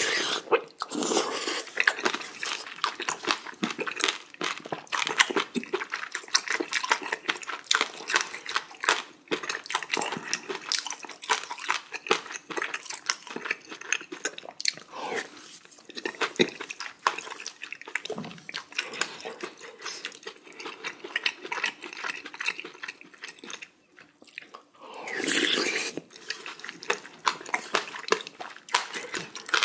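Close-miked mukbang eating sounds: a man slurping and chewing spicy beef small-intestine hot pot (gopchang jeongol) with noodles, as a dense run of small wet clicks and smacks. A longer hiss comes a few seconds before the end.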